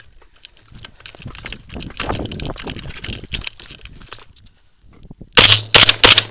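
Footsteps crunching over gravel and scattered debris, followed about five seconds in by a rapid string of several rifle shots.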